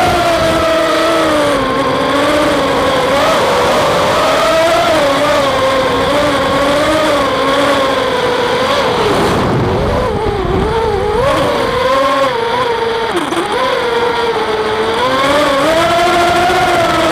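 FPV racing quadcopter's motors whining, the pitch wavering up and down as the throttle changes, with a drop in pitch and a rougher, noisier stretch about halfway through.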